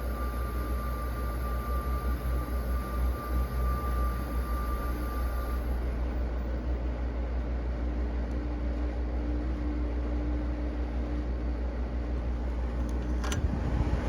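Carrier UC series 5,000 Btu window air conditioner running on low cool: its Tecumseh rotary compressor and blower fan make a steady hum with a constant rush of air. A faint high tone drops out about six seconds in, and there is a single click near the end.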